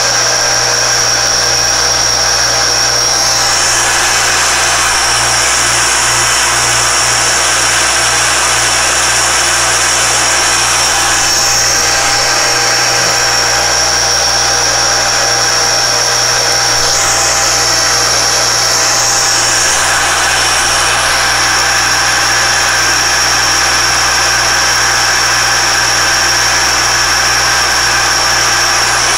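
Alexander Model 3A pantograph engraving machine running under power, its belt-driven spindle cutting an index mark into a German silver dial blank. A steady high whine runs throughout, with the cutting noise rising and falling a few times as the stylus is guided around the template.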